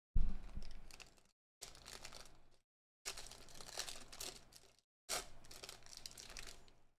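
Foil wrapper of a Topps Tier One baseball card pack crinkling and tearing as it is ripped open, in four bursts, the first the loudest.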